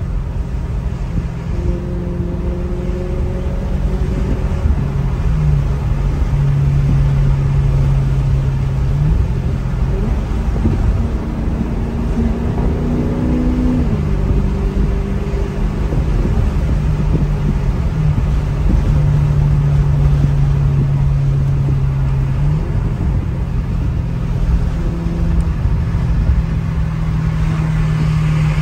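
Maserati GranTurismo engine and exhaust heard from inside the car while cruising. The engine note holds steady and steps up and down in pitch every few seconds with small throttle changes, and rises briefly about halfway through. A low rumble of road and tyre noise lies underneath.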